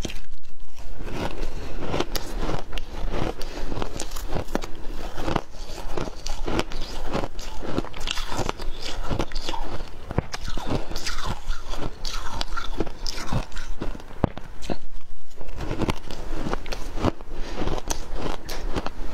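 Chunks of frozen shaved ice coated in matcha powder being bitten and chewed: dense, irregular crunching and cracking of ice, one crunch after another.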